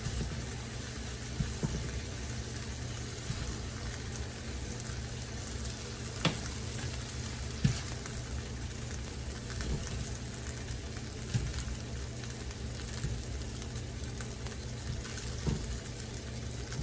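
Stir-fried vegetables sizzling steadily in a hot pan, with a few sharp clicks of a utensil against the pan or plate as the food is served out.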